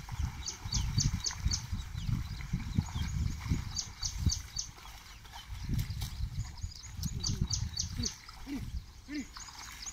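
Bulls' hooves and a levelling board sloshing and thudding through the mud and water of a flooded paddy field. A bird chirps over it in quick runs of four or five notes, several times.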